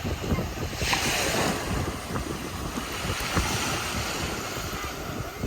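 Ocean waves breaking on a beach, with wind buffeting the microphone; a wave surges about a second in.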